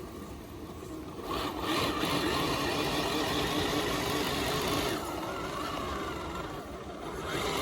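Small electric motor and gears of an RC off-road crawler whirring under load. It swells about a second in, eases off about five seconds in and picks up again near the end.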